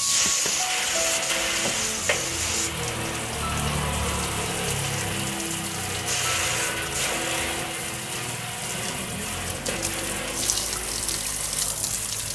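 Water spraying and running in a steady hiss, likely rinsing washing-machine drum parts, with background music underneath.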